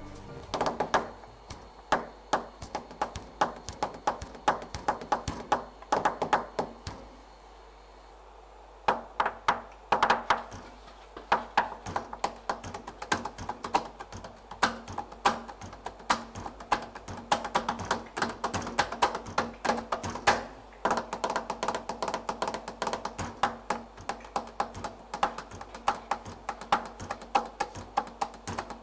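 Hand percussion played in a quick darbuka-style rhythm: dense, dry taps, with a pause of about a second and a half some seven seconds in.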